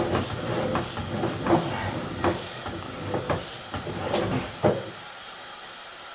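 Sewer inspection camera's push cable being fed along a drain line: a string of irregular knocks and rattles over a steady hiss, the knocks stopping about five seconds in.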